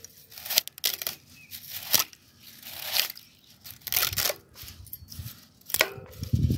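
Dry spaghetti strands snapping and crackling as a slotted metal spatula presses the bundle down into a pot, in irregular crunchy bursts with a rustle of strands between them.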